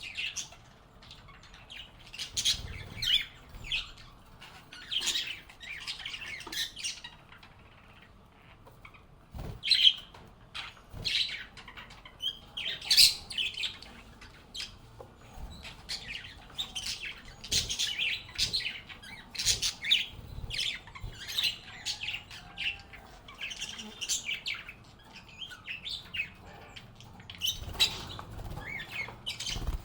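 A flock of pet lovebirds (Agapornis) chattering: many short, high chirps overlapping in quick, irregular runs, with a few dull thumps in between.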